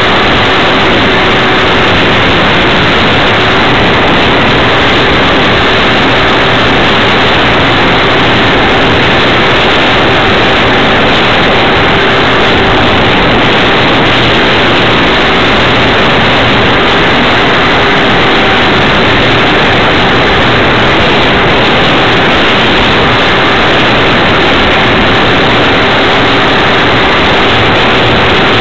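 Steady, loud rushing noise of an RC de Havilland Tiger Moth model biplane in flight, heard from a camera mounted on the plane: its motor and propeller running with air rushing past, and a faint steady hum underneath.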